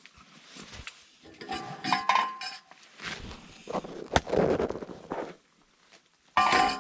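Light clinks and knocks with a stretch of scraping, the sound of gear being handled by hand.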